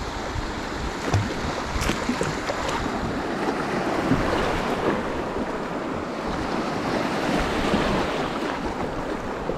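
Fast river current rushing and splashing against the side of a kayak running through a riffle, with a few light knocks in the first few seconds.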